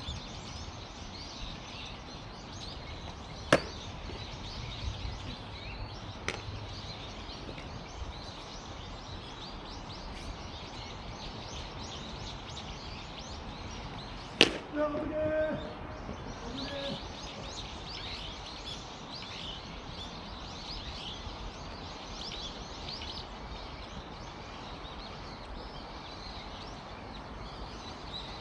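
Pitched rubber baseballs popping into the catcher's mitt: a sharp pop about three and a half seconds in and another about fourteen seconds in, the second followed by a short shout, with a fainter pop around six seconds. Birds chirp throughout over steady outdoor noise.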